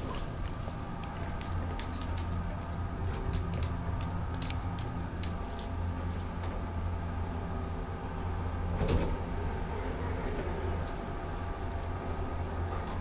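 Elevator doors sliding shut about nine seconds in, over a steady low hum. A run of sharp clicks comes in the first half.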